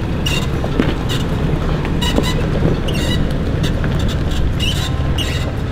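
Off-road vehicle driving on a rocky trail: steady engine and tyre rumble, with many short sharp clicks and cracks scattered through it.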